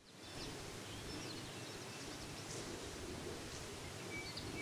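Outdoor nature ambience: a steady rushing background with scattered faint bird chirps and short whistles, fading in at the start.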